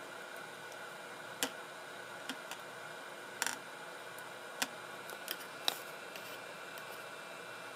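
Scattered light clicks and taps, about seven of them spread unevenly, from metal tweezers and a soldering iron tip handling a small surface-mount chip on a circuit board. Under them is a steady hiss.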